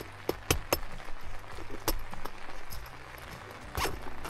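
Tent door zipper and fabric being worked by hand: a few sharp clicks in the first two seconds and a short zipping rasp near the end, the zipper having gone bad. A faint low steady hum runs underneath.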